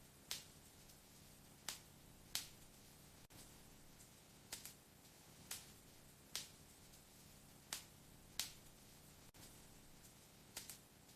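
Wood fire in a fireplace crackling: sharp pops and snaps of burning wood at irregular intervals, about a dozen, a few in quick pairs, over a faint steady hiss.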